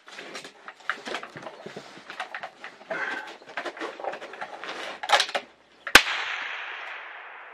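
Clicks and rustling as a shooter handles a scoped precision rifle and gear against a tire barricade, then a single loud rifle shot about six seconds in, its report echoing and fading slowly.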